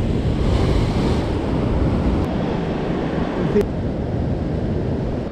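Sea surf breaking against the rocks of a breakwater, with wind buffeting the microphone; a wave crashes and splashes about half a second in. A single sharp click comes a little past three and a half seconds.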